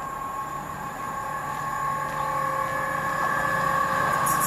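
Class 70 diesel-electric freight locomotive (GE PowerHaul V16) approaching under power: a steady engine drone with several steady high tones over it, growing louder as it nears. A few sharp clicks come in near the end.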